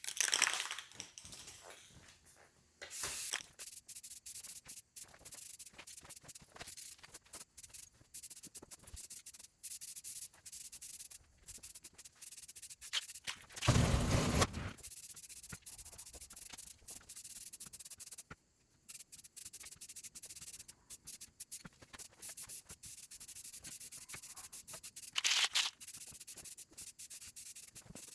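Aerosol spray-paint can hissing in repeated short passes, stopping and starting many times. There is a brief louder knock about halfway through.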